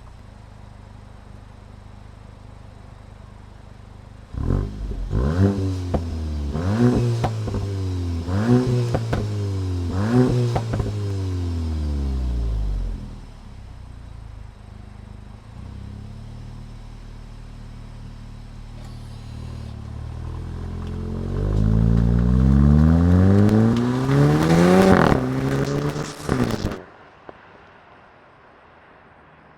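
Volkswagen Mk8 GTI's turbocharged 2.0-litre four-cylinder engine in Sport mode, idling and then revved about five times in quick succession, with exhaust pops and crackles as it comes off each rev. It drops back to idle, then makes one longer climb in revs ending in more crackles before the sound cuts off near the end.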